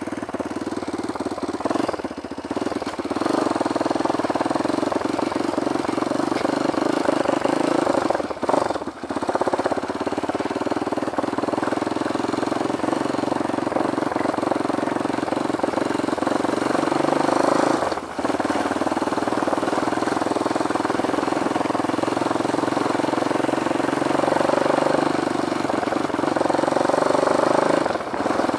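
Dirt bike engine running as the bike is ridden, heard from the rider's position, with a few brief dips where the throttle eases off, most clearly around 9 and 18 seconds in.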